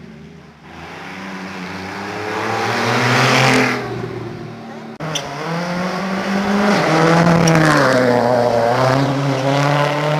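Rally car engine at high revs, accelerating hard through the gears: its pitch climbs, then drops back at each gear change. The sound breaks off sharply about halfway, then another run of the same climbing and dropping engine note follows.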